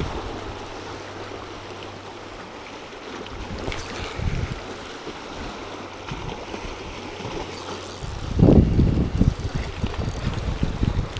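Sea waves washing and splashing against shoreline rocks, with wind buffeting the microphone. From about eight seconds in, louder low rumbling surges come in.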